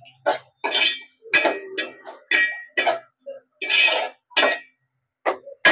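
Steel ladle scraping and clinking against the inside of an aluminium pot while tomatoes and onions are stirred: about two irregular strokes a second, each with a short metallic ring.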